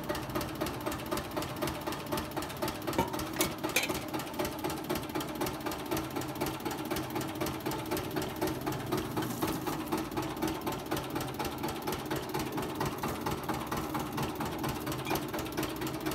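Sugarcane juice crusher machine running steadily, a mechanical hum with a regular pulse. A couple of light clicks come about three and a half seconds in.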